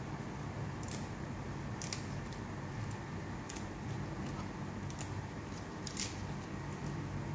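Covered pot of vegetables cooking on a gas stove: a steady low hum with a sharp little tick every second or so.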